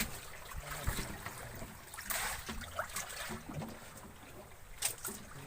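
Water lapping against a small fishing boat's hull. There is a brief rush of noise about two seconds in and a sharp knock near the end.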